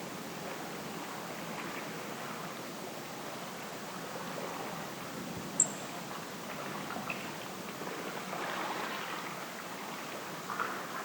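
Steady watery ambience, with one sharp, high click about halfway through and a few faint ticks near the end.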